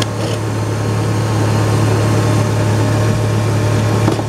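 Volvo 855's five-cylinder engine idling steadily with the air conditioning switched on. There is no change in idle and no clutch engagement, a sign that the AC compressor is not engaging.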